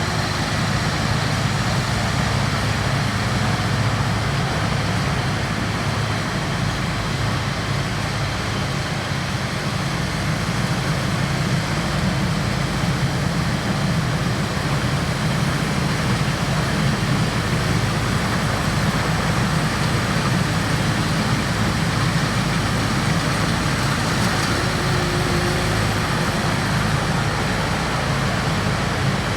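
Rice combine harvester's diesel engine running steadily under load, a constant low drone with machinery noise over it.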